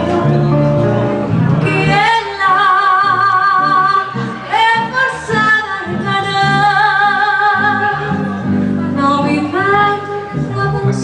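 A woman singing live with wide vibrato, accompanied by acoustic guitar. Her voice slides up into long held notes about two seconds in, again near the middle, and near the end.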